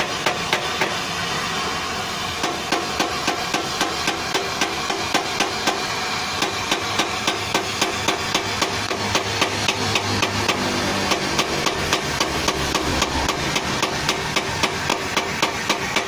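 Regular knocking, about three sharp strikes a second, over a steady background.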